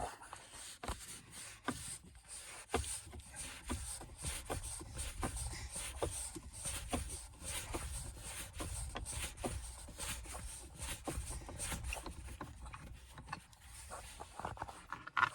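Screwdriver working a Phillips head screw out of a truck's center console: a run of irregular small clicks and scrapes over a low rumble.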